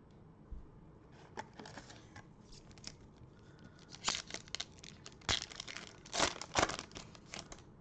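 Foil wrapper of a Panini Prizm trading-card pack being torn open and crinkled by gloved hands: irregular crackles, sparse at first, then loudest and densest from about four seconds in.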